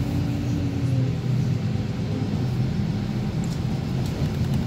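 City bus cabin noise while driving: a steady low engine and road rumble, with a low steady hum that fades out about a second in.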